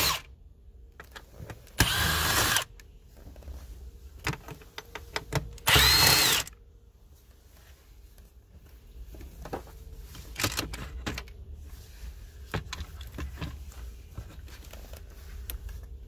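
Power drill spinning a T25 Torx bit in short bursts to back out the screws holding an automatic gear shifter assembly: a brief whine at the very start, again about two seconds in and again about six seconds in. After that come scattered light clicks and knocks.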